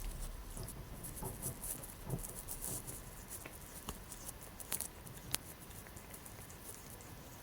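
Faint, irregular light scratching and rustling with small clicks, and two sharper ticks a little past the middle.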